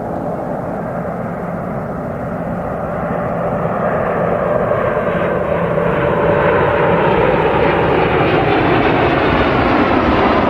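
Airplane engine noise growing steadily louder and brighter as the aircraft draws nearer, a broad rushing sound with faint tones slowly shifting in pitch.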